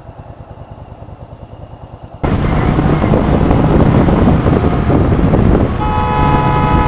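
Yamaha Virago V-twin engine idling with an even low pulse. About two seconds in, it gives way suddenly to loud engine and wind noise as the bike moves off. Near the end a vehicle horn starts a steady honk of several tones together.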